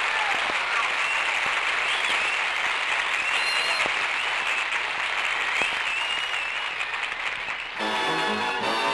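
Studio audience applauding for about eight seconds after a song, then the dance band strikes up again near the end.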